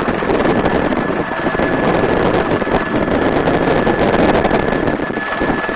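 Helicopter in flight heard from an open-door cabin: loud, steady rotor and engine noise with wind buffeting the microphone, and a thin, steady high whine running through it.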